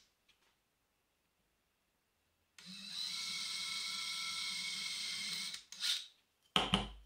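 Cordless drill boring a hole through a small plywood block. It starts about two and a half seconds in and runs steadily for about three seconds. Two short bursts and a thump follow near the end.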